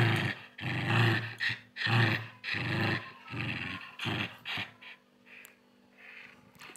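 Small spitz-type dog growling in play while tugging a cloth, a string of short rough growls about once a second that die away about four and a half seconds in.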